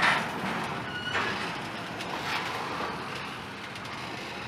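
Double-stack intermodal train rolling past: steel wheels rumbling and clattering on the rails, loudest in a clatter right at the start, with brief high wheel squeals about a second in and again near the end.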